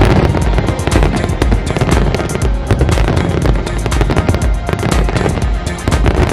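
Fireworks going off in a rapid, continuous barrage: many sharp bangs and crackles a second over deep booms, with music playing underneath.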